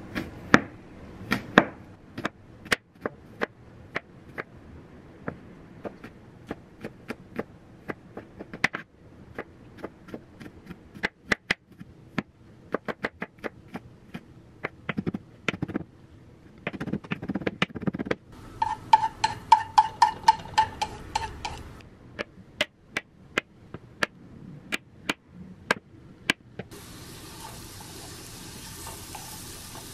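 Kitchen preparation sounds: scattered clicks and knocks of utensils and containers, with a quick run of evenly spaced clicks for about three seconds past the middle. Near the end comes a steady rush of running water.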